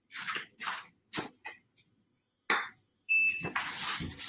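A short, high electronic beep about three seconds in. Around it are brief rustling and handling noises, with a louder stretch of rustling near the end.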